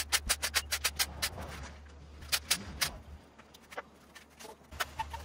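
Cordless power tool clicking rapidly, about six clicks a second, as it works bolts on an aluminium engine block, then stopping about a second in; a few scattered metallic clinks of tools and parts being handled follow.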